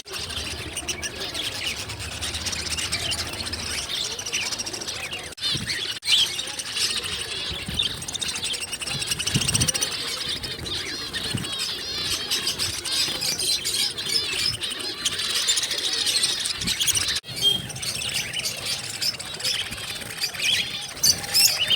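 Many small cage birds chirping together: a dense, continuous chatter of short high calls, with a few brief breaks.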